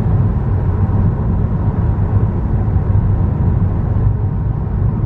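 Steady low road and engine rumble heard inside a car cabin while it drives at expressway speed.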